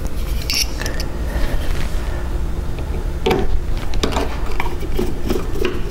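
Hand screwdriver turning a screw into the panel's faceplate and wooden fascia: scattered clicks and scrapes, the clearest around three and four seconds in, over a steady low hum.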